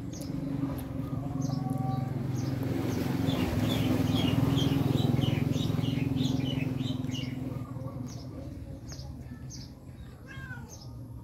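Small birds chirping over and over in short, quick, downward-sliding notes. Under them a low steady hum swells and fades over the first eight seconds or so and is the loudest sound.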